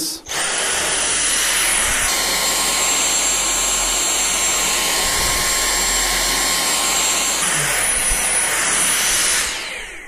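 Dyson V6 Animal cordless stick vacuum running on carpet with its motorized floor head: a steady rush of air under a high whine. It starts a moment in, and its whine shifts pitch about two seconds in and shifts back near the end. It winds down just before the end.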